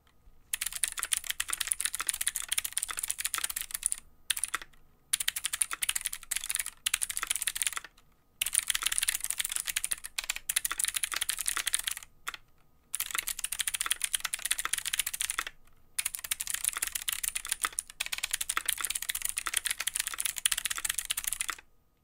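Typing on a Helix Labs Aaru mechanical keyboard fitted with clicky Skylar switches and a brass plate: fast, crisp key clicks in runs of a few seconds, broken by several short pauses.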